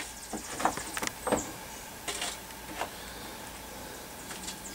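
Cut raw potatoes being dropped by hand into a metal wire fry basket: a few scattered light knocks and clicks in the first three seconds, over a faint steady hiss.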